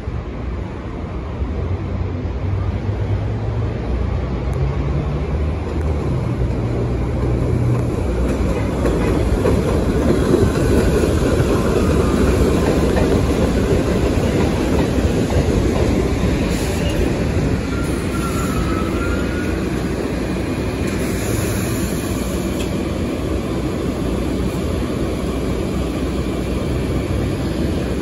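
R62A New York City Subway train running on steel rails past an elevated platform: rumble and clatter of the wheels swell as the cars come close, then settle into a steady rumble. A brief thin squeal of wheels or brakes sounds about two-thirds of the way through.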